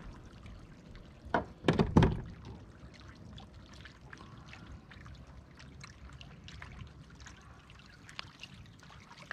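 Water splashing and trickling beside a kayak as a small hooked bass is brought in to the boat, with a short cluster of loud sharp splashes and knocks about a second and a half in, then soft dripping and small ticks.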